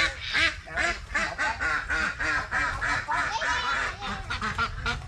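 Ducks quacking in a run of short, rapid calls, several a second.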